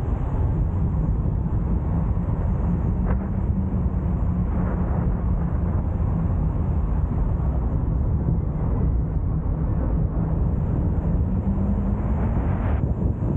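A car driving at steady speed: a constant low rumble of engine and road noise, with wind buffeting the microphone.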